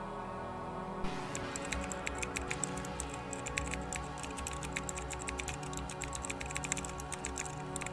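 Computer keyboard typing in quick, irregular keystrokes, starting about a second in, over steady background music.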